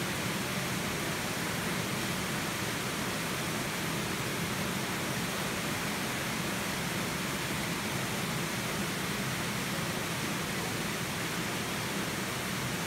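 Steady, even rushing hiss of an indoor swimming pool hall, with the water moving in the pool.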